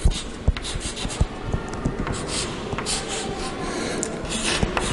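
Chalk scratching and tapping on a blackboard as a dimension line and figures are drawn: several short scratchy strokes with sharp ticks of the chalk against the board.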